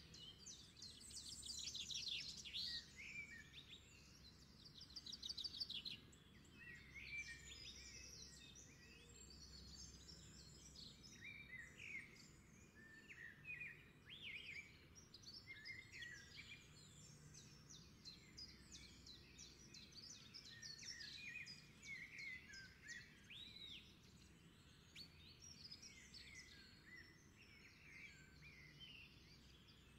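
Several birds chirping and singing at once, faint, with a couple of fast trills in the first few seconds.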